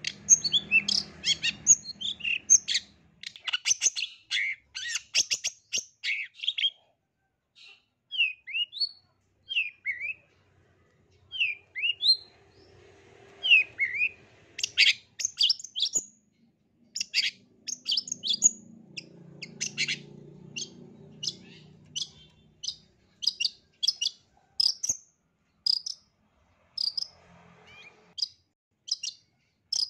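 Long-tailed shrike singing: a fast run of sharp, varied chirps and whistles. Around a third of the way in it thins to a few separate falling notes before the quick chatter resumes.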